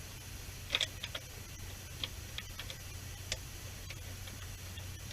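Scattered light metallic clicks and taps as nuts are started by hand onto the top studs of a Ford F150 strut assembly, with a cluster of clicks about a second in. A steady low hum runs underneath.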